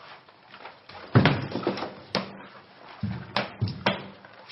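Heavy thumps and knocks of a large plastic water-cooler jug and a body against the floor as the jug is wrestled. The loudest thump comes about a second in, followed by a sharp knock and a few more knocks and thumps near the end.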